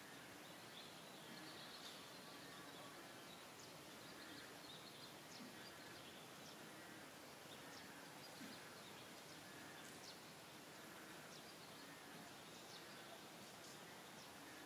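Near silence: a faint steady outdoor hiss, with scattered faint short high chirps.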